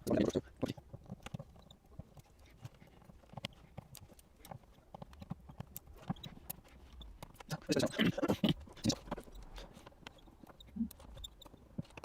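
A small screwdriver and phone parts clicking and tapping irregularly as the screws are taken out of a Samsung Galaxy Note 8's frame, with a louder flurry of handling about eight seconds in.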